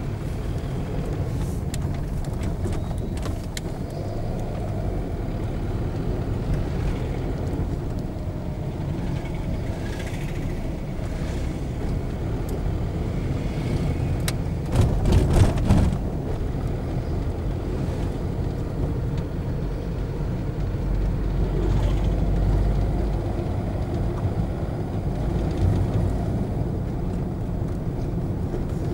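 Steady low rumble of a moving car's engine and tyres heard inside the cabin, with a louder burst of knocks and rattles about halfway through.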